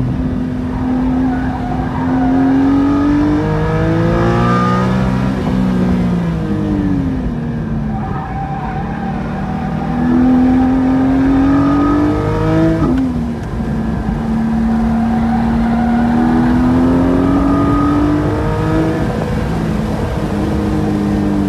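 Porsche 718 Cayman GT4's 4.0-litre flat-six running hard on track, heard from inside the cabin. The engine note rises as it accelerates and falls as it slows for corners, with a sudden drop in pitch at an upshift about 13 seconds in.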